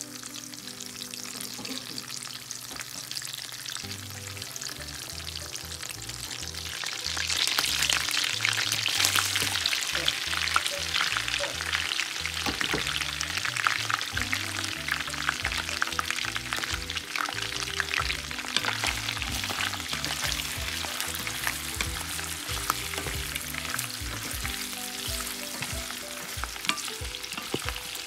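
Garlic slices frying in hot butter in a nonstick pan, with dense crackling and sizzling as a wooden spoon stirs them. About seven seconds in the sizzling grows markedly louder and stays loud as squid pieces fry in the fat. Background music plays underneath.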